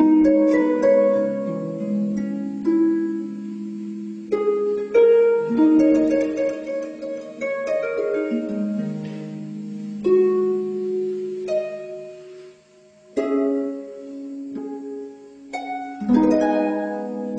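Slow solo harp music: plucked notes ring and die away over low held notes, with fuller chords struck every few seconds. It fades briefly about twelve seconds in, then a new chord comes in.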